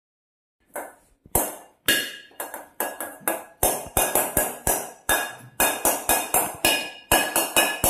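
A metal bowl beaten with a plastic spoon like a drum, ringing sharply with each strike. The strikes begin under a second in and go on in an uneven rhythm of about three a second.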